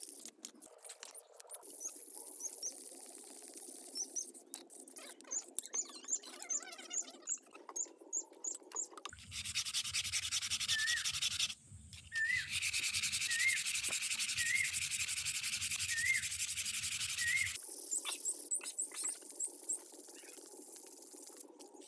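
Wet scouring sponge scrubbing the steel arms of an old car jack: irregular rubbing strokes with small high squeaks. For about eight seconds in the middle a louder, steadier hiss with a low hum covers the scrubbing.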